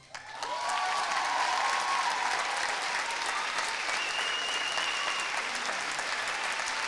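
Theatre audience applauding, with a few cheering voices over the clapping. It starts about half a second in, just after the music stops, and holds steady.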